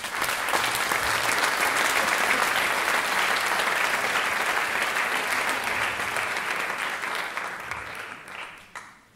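Audience applauding: many hands clapping together, starting abruptly and dying away over the last couple of seconds.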